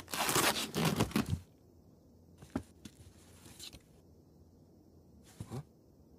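Packing tape ripped off the seam of a cardboard box in one long tear, then softer scrapes and rustles of the cardboard flaps being pushed open.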